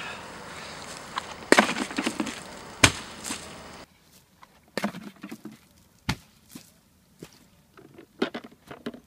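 A bucket of ice water dumped over a person's head: a splash with ice chunks clattering about a second and a half in, and a sharp knock just after. Scattered short knocks and clicks follow.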